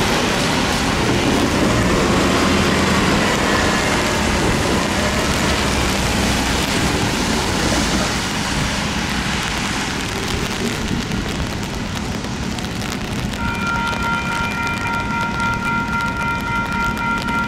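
Steady rain with car tyres hissing on the wet road. About three-quarters of the way through, an electronic railroad-crossing bell starts ringing steadily as the crossing activates.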